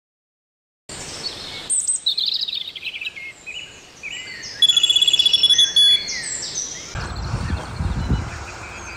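After about a second of silence, several songbirds sing in a morning chorus: many short high chirps and whistles, with one loud, fast trill about five seconds in. Near the end a low steady rumble of outdoor noise takes over.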